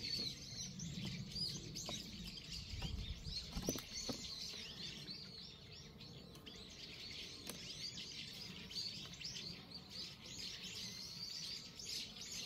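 Small birds chirping and twittering on and on, with a few light wooden knocks as beehive frames are shifted and lifted.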